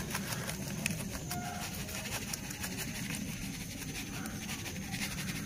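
Sand trickling from a plastic mug into a plastic pot: a faint, steady hiss with a few light ticks, over a low steady hum.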